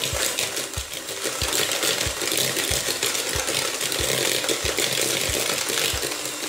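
Electric hand mixer running steadily at low speed, its beaters whirring through creamed butter, brown sugar and oil in a ceramic bowl.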